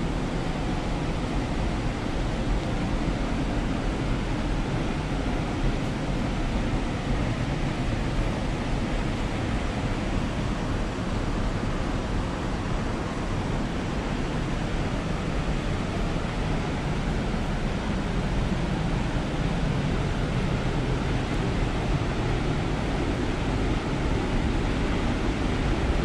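Steady rushing of water, an even noise with no breaks, from the waterfall and its stream beside the forest path.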